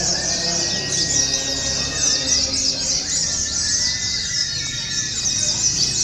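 White-eye (pleci) birdsong: a fast, unbroken, high twittering of chirps, with a few longer steady whistled notes mixed in.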